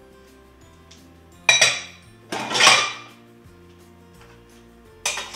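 Metal saucepan and kitchen utensils clattering on a countertop as they are set down: a short clatter about a second and a half in, then a longer, louder scraping clatter, and more clatter near the end. Background music plays throughout.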